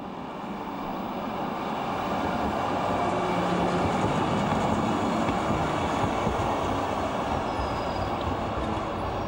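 Historic DÜWAG Type N eight-axle articulated tram passing close by: the rolling noise of its steel wheels on the rails grows louder to a peak a few seconds in, then slowly fades.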